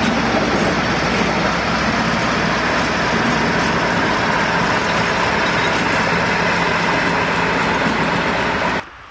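British Rail Class 56 diesel locomotive's Ruston-Paxman V16 engine running loud and steady as the locomotive moves past and away. The sound cuts off suddenly near the end.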